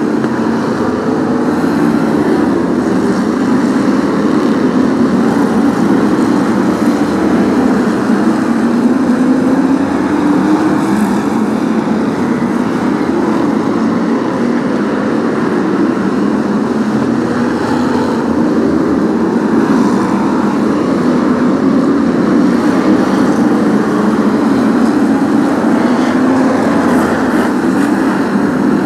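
A pack of V8 stock car engines running together, loud and continuous, their pitch rising and falling in slow sweeps as the cars accelerate and lift around the oval.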